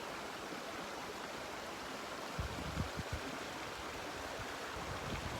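Steady rushing wash of sea water along the shore. From about halfway, irregular low rumbling bumps are added.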